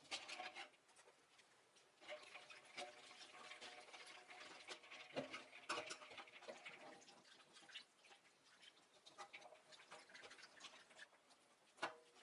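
Faint clinking of ice cubes and sloshing of water in a metal bowl as noodles in a wire-mesh strainer are stirred through an ice bath. Small knocks of metal on metal come throughout, and there is a sharper knock near the end as the strainer is lifted to drain.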